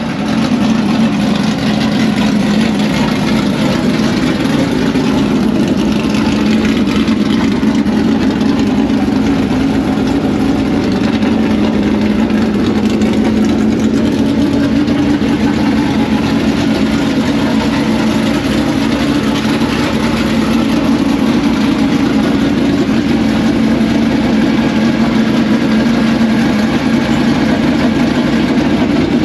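An engine running loud and steady, its pitch shifting up and down a little now and then without any sharp revs.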